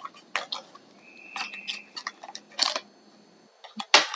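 Hands handling a small cardboard and plastic retail box for in-ear headphones: scattered light clicks and rustles, the sharpest and loudest near the end, with a faint thin squeak lasting about a second in between.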